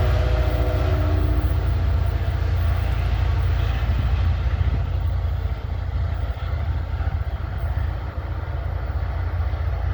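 Wind buffeting the microphone in a steady low rumble, with a train fading away in the first second or two.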